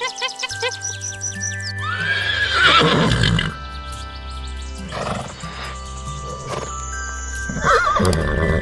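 Horse neighing over background music: a long whinny with a quavering pitch about two seconds in, a shorter call around five seconds, and another whinny near the end.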